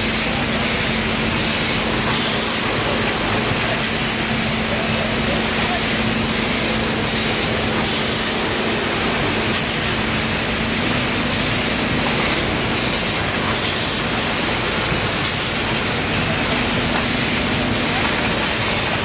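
Wieland industrial vacuum cleaner running, its metal wand sucking up oily residue from machinery: a steady rushing noise with a low, even hum underneath.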